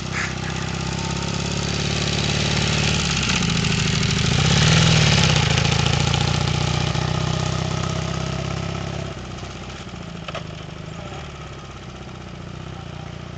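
Motorcycle engine passing by at low speed, getting louder to a peak about five seconds in and then fading away. Its note bends up and down around the middle as the rider works the throttle and gears.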